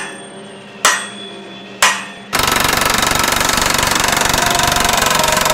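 Three sharp ringing knocks about a second apart. Then, a little over two seconds in, an impact wrench starts up loud and steady, its socket hammering rapidly as it drives a nut on a bolt through a steel beam.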